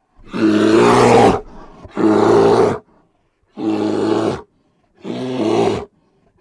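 A large animal calling: five rough, deep roaring calls of about a second each, evenly spaced.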